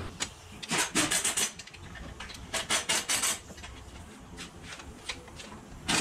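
Hand ratchet wrench clicking in two quick bursts, about a second in and again about three seconds in, as it works the 13 mm nuts on the rear catalytic converter's exhaust joint.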